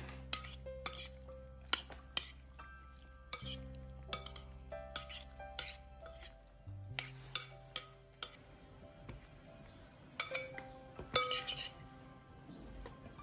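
Utensils clinking against dishes in irregular sharp clinks, some close together, over background music with held notes.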